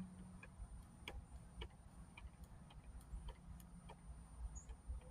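Faint, irregular clicks, roughly one or two a second, from a Phillips screwdriver driving the screws that hold a security light fixture to its mounting bracket.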